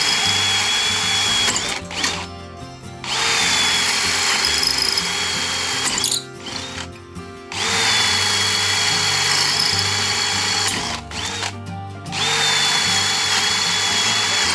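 Stanley FatMax SBD715D2K brushless cordless drill boring a 10.5 mm bit into a clay brick in plain drill mode, without hammer action. It runs with a steady high whine and grinding, in three spells with two short stops.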